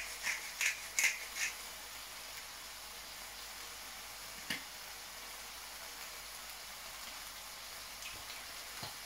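A seasoning shaker shaken over a wok of stir-fry in short, even strokes, about three a second, stopping after a second and a half. Then only a faint, steady sizzle from the food frying in the hot wok, with a single click about halfway through.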